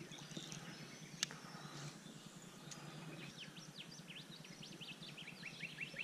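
Quiet creekside background with a bird calling a rapid series of short, repeated chirps that starts about halfway through. There is a single faint click about a second in.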